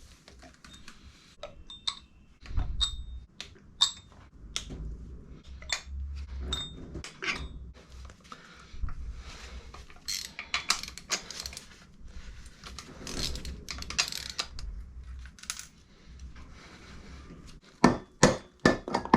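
Metal engine parts and tools being handled during an engine teardown: clinks of metal on metal with a brief ring, then a stretch of scraping, and a few sharp knocks near the end.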